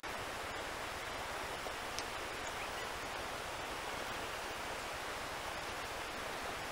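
Steady rushing of a fast, high-running river.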